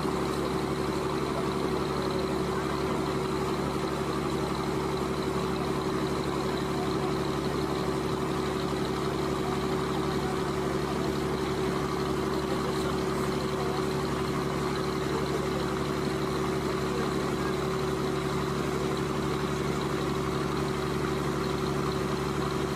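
Tour boat's engine running steadily under way, a constant low hum with a few held tones.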